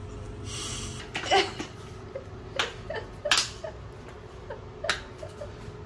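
Kitchen handling sounds: a short hiss about half a second in, then four sharp knocks and clicks a second or so apart as things are set down and handled on a stainless-steel counter, over a faint steady hum.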